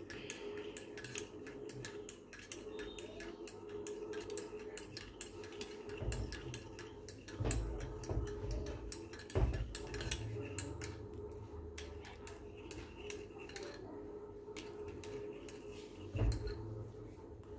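Teaspoon stirring tea in a ceramic cup, clinking against the sides in rapid repeated taps, over a steady low hum. A few dull thumps come through the middle and near the end.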